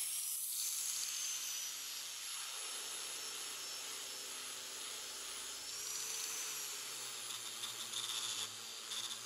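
Black+Decker angle grinder with a sanding disc on a backing pad, running steadily and sanding the steel blade of an old drawknife: a steady motor whine under the hiss of the abrasive on the metal. It starts abruptly and grinds in a few louder spurts near the end.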